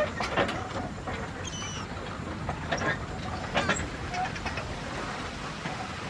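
Marina dock ambience: a steady wash of background noise with a few sharp knocks and clanks, two near the start and two more about three seconds in, and brief high chirps about a second and a half in.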